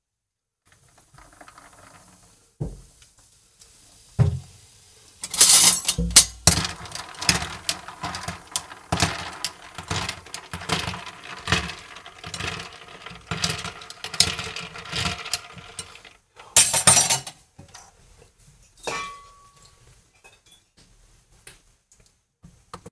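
Ice cubes clinking against a tall glass as a long spoon stirs a cocktail topped up with Sprite, a quick run of clinks about two a second, with a louder rattle of ice near the end. Faint pouring at first, and one clink with a short ring a little before the end.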